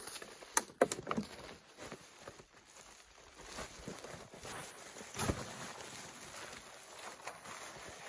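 A rolled tarp being handled, with footsteps in snow: a few sharp clicks about half a second in and a dull thump about five seconds in, over low rustling.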